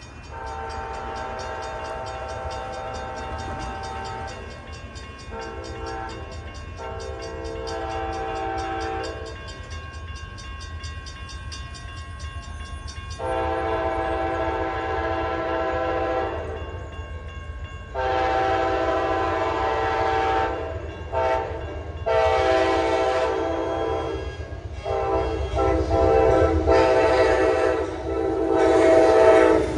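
Freight locomotive air horn sounding a series of blasts, each a chord of several tones lasting one to four seconds, with short pauses between. A steady low rumble of the train runs underneath.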